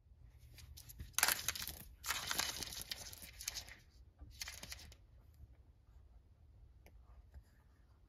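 A lop-eared rabbit's claws scratching rapidly on a hardwood floor as it digs, in three scratchy bursts over the first five seconds, then only faint ticks.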